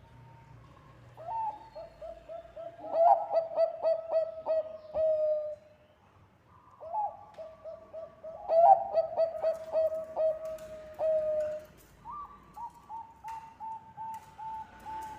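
Zebra doves (perkutut bangkok) cooing: three runs of quick, stuttering coo notes, each lasting a few seconds, with short pauses between them.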